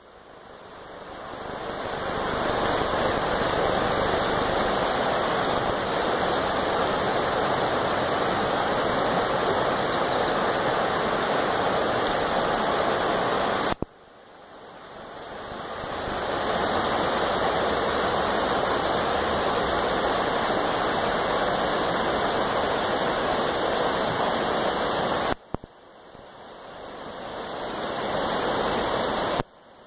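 Steady rush of Oak Creek, a shallow rocky creek, rippling over stones. The sound cuts out suddenly three times and fades back in over a couple of seconds each time.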